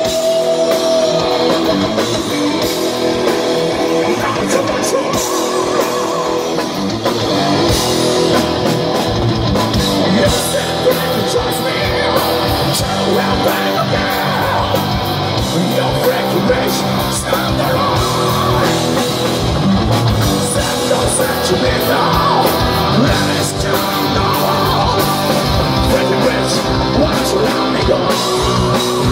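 A rock band playing live: electric guitars, bass guitar and drum kit, with a male singer singing into a handheld microphone.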